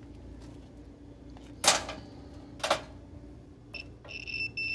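Two sharp clicks, then a digital multimeter's continuity beeper: a short beep and then a held beep of about half a second as the test probes touch the terminals of an electric stove's coil burner element, showing the element conducts.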